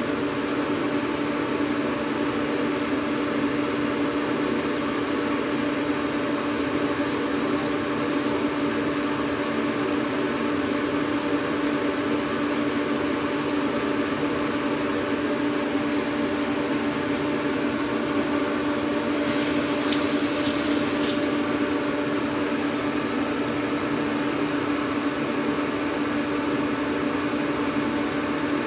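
A steady low mechanical hum, with faint short scrapes of a Gold Dollar 66 straight razor being drawn through shaving lather and stubble. A brief hiss comes about two-thirds of the way through.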